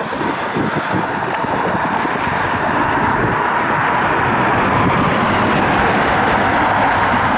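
Jet aircraft engine noise: a loud, steady rushing sound that grows gradually louder, with a faint steady whine in it.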